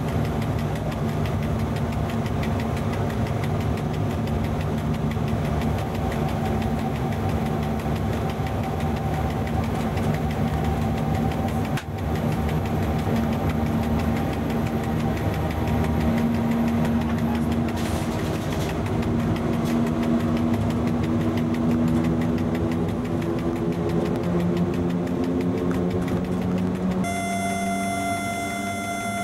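Cab running noise of an FS E.656 electric locomotive under way: a steady rumble with the hum of the traction motors and blowers, climbing slowly in pitch through the second half. Near the end the hum changes abruptly to a set of higher steady tones.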